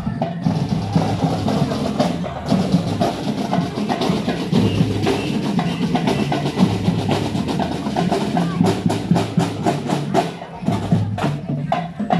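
Drum and lyre marching band playing a marching beat on drums, with sharp, regularly spaced drum strokes that stand out in the second half.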